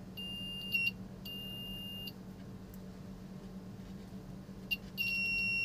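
Piezo buzzer of a homemade continuity tester beeping as its probes touch the leads of a resistor. It gives a steady high-pitched tone three times, each under a second long, with scratchy crackles as the contact makes and breaks. The beep shows current passing through the resistor, so it tests good.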